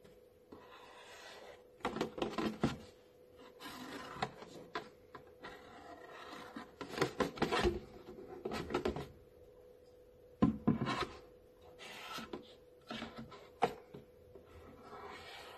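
Marker rubbing and scratching across a plastic milk jug as lines are drawn, with the hollow jug knocking and rattling as it is turned and handled; the loudest knocks come about two, seven, ten and a half and fourteen seconds in.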